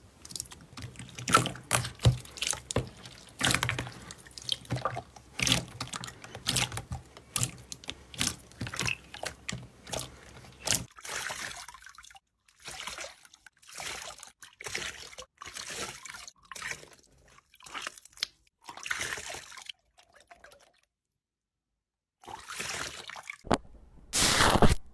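Slime pressed, squeezed and poked by hand, including clear slime worked under water: wet squelching with irregular sticky pops and clicks. A brief silence comes near the end, followed by louder pops.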